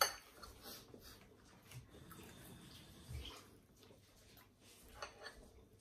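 Quiet sounds of eating at a table: a sharp clink of cutlery on a plate right at the start, then faint scattered small clicks and taps of forks and dishes.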